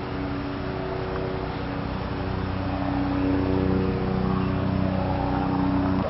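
An engine running steadily, a hum of several held tones that grows a little louder past the middle.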